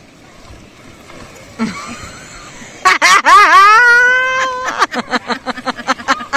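A person lets out a loud, high-pitched shriek about three seconds in that rises and holds for under two seconds, then breaks into quick laughter.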